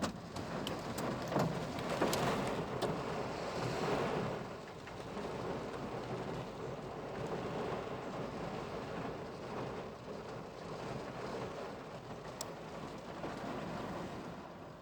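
Heavy rain pouring down in a storm: a steady rushing noise, a little louder for the first few seconds, with a few sharp taps of drops striking nearby.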